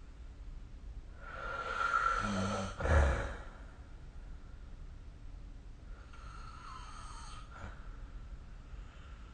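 A sleeping person snoring: one long snore starting about a second in and ending in a short, louder catch near three seconds, then a fainter breath around six to seven seconds.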